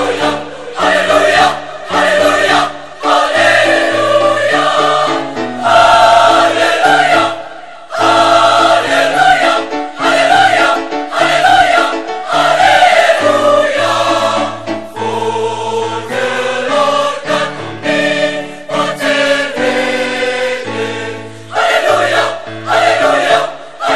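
Large mixed choir singing with electronic keyboard accompaniment, held bass notes under the voices, in phrases separated by short breaks.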